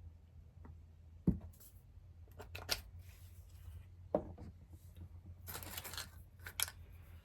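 Small hand-work sounds from gluing paper belt strips to tiny hardware: a few sharp taps and clicks, about four, with a short rustle of paper about five and a half seconds in.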